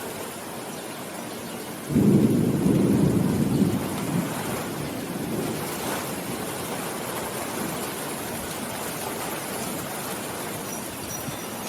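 Steady rain falling, with a roll of thunder that starts suddenly about two seconds in, rumbles for a couple of seconds and fades back into the rain.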